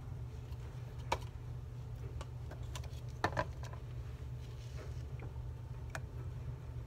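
A few light, scattered clicks and knocks of plastic paint cups being handled and set down during an acrylic pour, over a steady low hum.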